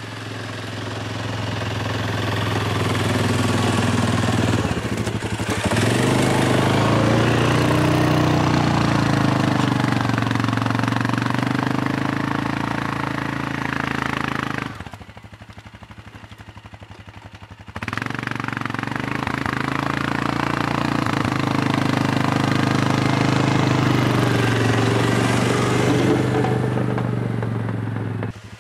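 Suzuki King Quad 750 ATV's single-cylinder engine running as the tracked quad plows and drives, its pitch rising and falling with the throttle. The sound drops abruptly to much quieter for about three seconds around the middle, then comes back.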